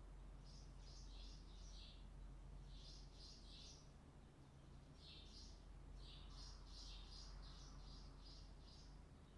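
Faint bird chirping: short runs of two or three high chirps, then a longer run of about eight quick chirps in the second half, over a low steady background hum.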